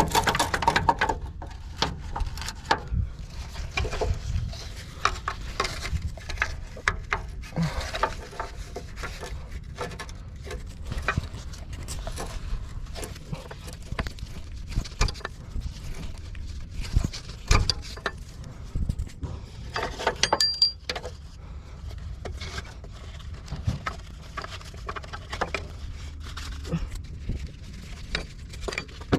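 Irregular clicks, taps and knocks of handling work, with a few heavier thumps, over a low background rumble.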